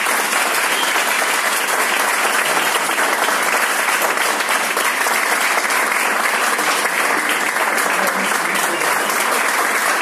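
Small audience applauding steadily, a dense even clapping.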